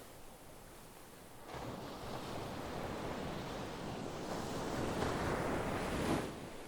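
Sea waves washing onto a shore: after a lull, a wave surges in from about a second and a half, builds to its loudest near the six-second mark, then falls away.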